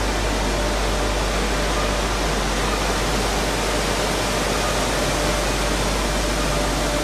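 Grain milling machinery running: a steady, even noise with a faint constant tone in it.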